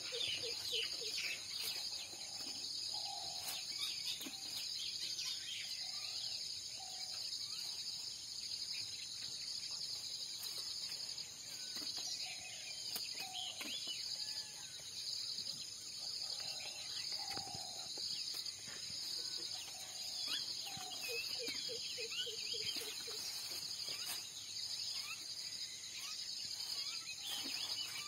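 Steady, high-pitched insect chorus with a fast pulse, with bird calls scattered through it: short chirps, repeated lower whistled notes every few seconds, and a quick trill about three-quarters of the way through.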